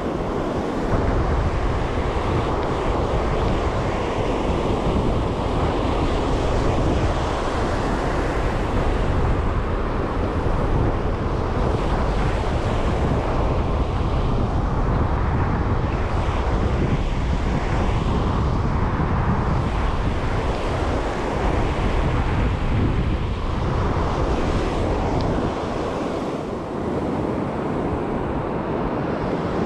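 Surf breaking and washing up the sand, under heavy wind buffeting the microphone that eases a little near the end.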